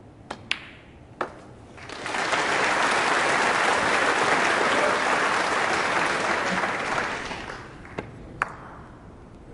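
Sharp clicks of snooker balls striking, then the audience applauding the shot for about five seconds before it dies away, followed by two more ball clicks.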